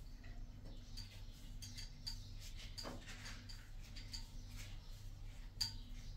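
Small irregular clicks and ticks of a plumbing fitting being handled and turned by hand at a wall pipe outlet, over a low steady hum.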